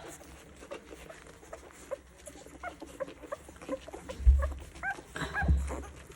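Ten-day-old Old English sheepdog puppies squeaking and whimpering while they nurse: many short, high squeaks with little pitch glides, overlapping one another. Two low thumps come about four and five and a half seconds in.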